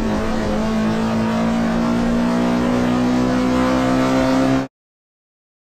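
Car engine running under acceleration, its pitch rising slowly and steadily; it cuts off suddenly shortly before the end.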